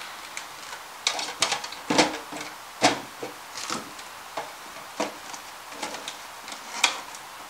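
Scattered light clicks, taps and rubbing as small makeup items and their packaging are handled and set down in a drawer, with two louder knocks about two and three seconds in.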